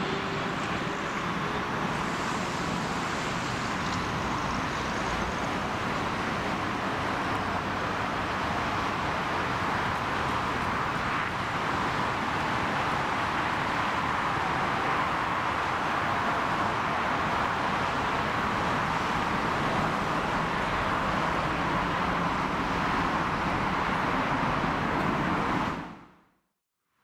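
Air China Boeing 777F freighter landing, its two GE90 turbofans making a steady jet roar through touchdown and the rollout down the runway. The roar fades out quickly about a second before the end.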